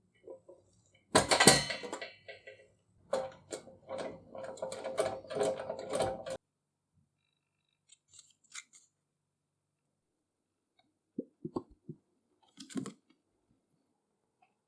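Clicks and knocks of small hard objects being handled: a loud knock about a second in, a dense run of clicking for about five seconds, then a few scattered taps.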